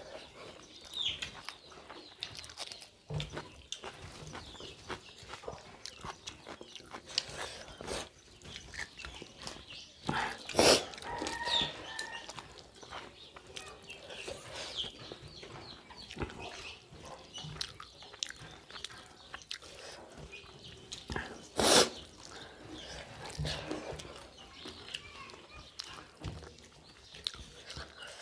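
Close-up eating sounds of two people eating khichdi by hand: chewing and lip smacking with small clicks, and fingers mixing soft rice on steel plates. Two sharp knocks stand out, about eleven seconds apart.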